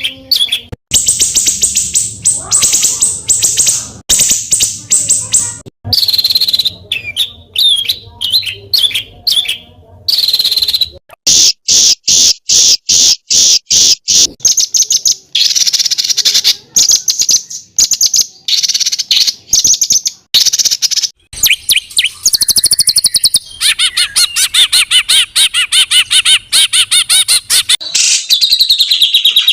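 A songbird singing rapid, harsh, tightly packed trills and rattles in repeated high-pitched bursts with short gaps: the dense, rough 'tembakan rapat dan kasar' song style. Near the end the rattle turns lower and buzzier.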